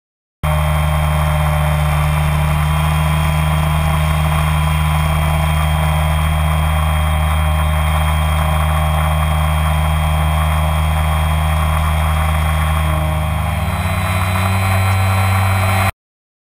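Multirotor drone's motors and propellers humming steadily, heard through the onboard camera. About 13 seconds in the pitch rises a little as the motors speed up, and the sound starts and cuts off abruptly.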